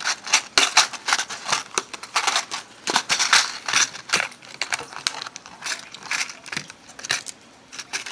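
Stiff clear plastic clamshell packaging crackling and clicking as it is handled and pried open, in a rapid, irregular run of sharp crinkles.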